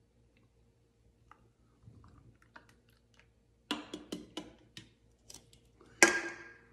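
Beer being poured from a can into a pint glass, with faint fizzing ticks and then a run of crackly clicks from the foaming pour. About six seconds in comes a sharp knock with a short ring as the pour ends and the can is put down.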